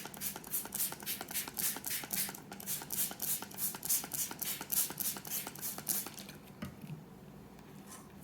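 Hand-pumped trigger spray bottle misting water onto lemon seeds on a paper towel: quick repeated squirts, about four or five a second, stopping about six seconds in.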